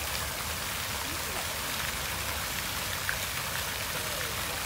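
Fountain jet splashing steadily onto a pond's surface, an even hiss of falling water.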